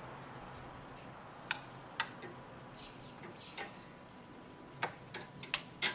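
Irregular light clicks and taps as smoked salmon pieces are picked off a wire smoker rack onto a plate, scattered at first and coming closer together near the end.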